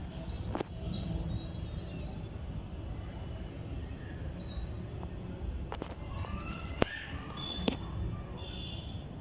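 Small brass ball-valve parts being handled and fitted together by hand: four sharp metallic clicks, the loudest about seven seconds in, over steady low background noise.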